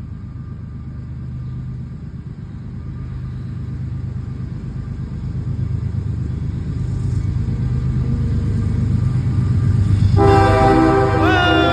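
Diesel freight locomotive approaching, its low engine rumble growing steadily louder, then about ten seconds in its five-chime Nathan K5HL air horn sounds a loud, steady chord.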